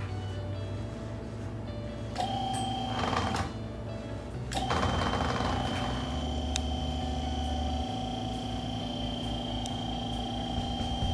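Electric hydraulic pump of a QuickJack portable car lift running with a steady whine as it raises the car. It starts about two seconds in, stops for about a second, then runs again.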